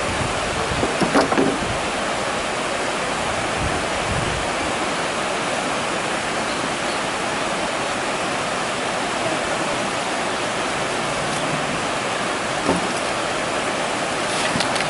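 Steady rushing noise of flowing water, with a few faint brief knocks about a second in and again near the end.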